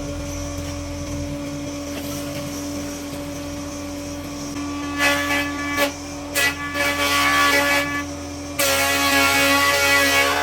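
Electric power tool running with a steady hum. From about halfway it bites into wood in several short, loud bursts, then cuts steadily and loudly near the end.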